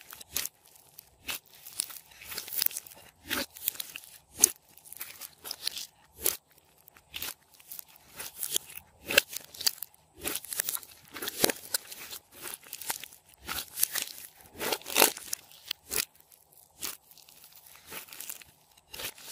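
Soft, foamy slime squeezed and kneaded by hand in a glass bowl, giving an irregular run of sticky crackles and pops.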